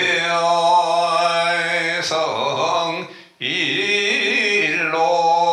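Korean Buddhist liturgical chanting: a male voice holding long, drawn-out notes on a steady pitch and pausing for breath about three seconds in. A single short knock sounds about two seconds in.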